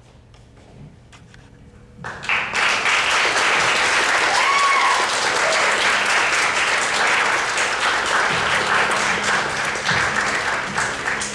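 Theatre audience applauding at the curtain call, coming in suddenly about two seconds in and continuing steadily.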